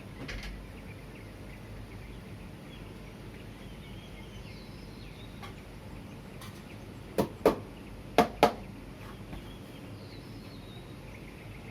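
Early-morning city ambience: a steady low hum of distant traffic with faint bird chirps. About seven seconds in come four short, sharp sounds in two quick pairs, much louder than the rest.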